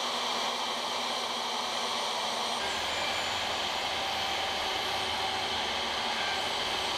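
Portable jobsite table saw running steadily while a thin strip of wood is ripped along the fence with a push block.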